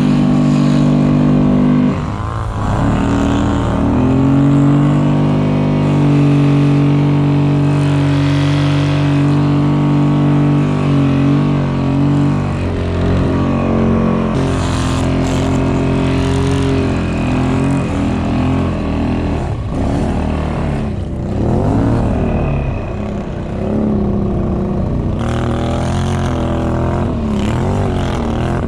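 ATV engines running under load, held at a steady pitch for long stretches, then rising and falling repeatedly with the throttle over the last several seconds.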